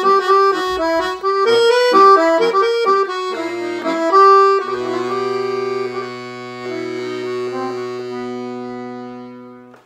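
Piano accordion playing a fast hora melody over chords. About halfway through it settles on a long held final chord with a low bass note, which slowly fades and then stops abruptly.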